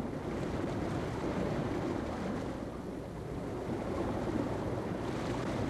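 Steady wash of sea and wind noise, with no distinct events.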